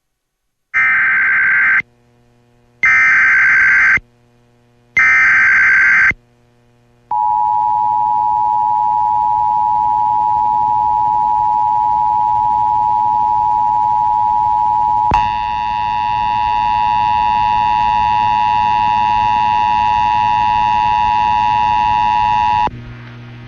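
Emergency Alert System activation: three short bursts of SAME header data, each about a second long with a short gap between, followed by the two-tone EAS attention signal (853 and 960 Hz) held steady for about fifteen seconds. The tone turns harsher about halfway through and cuts off about a second before the end, leaving a low hum.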